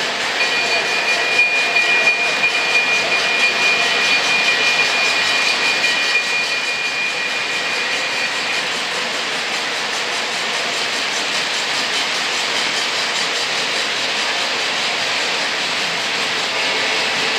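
Lionel O gauge model trains running on the layout: a steady rolling rumble of wheels on the track, with a thin high whine through the first half.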